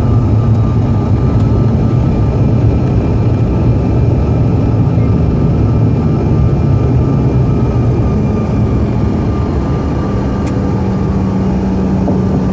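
Steady low rumble heard in the cabin of a CRJ-900 regional jet rolling out after landing and turning off the runway, from its rear-mounted turbofan engines, with a faint high whine. About ten seconds in, the low hum shifts to a steady, slightly higher tone.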